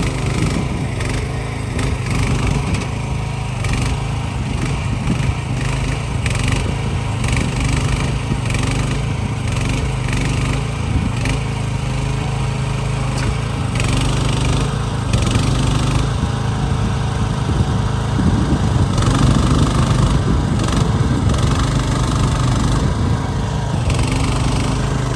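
Mini excavator's small engine running steadily, a constant low drone at an even pitch, while the machine is worked.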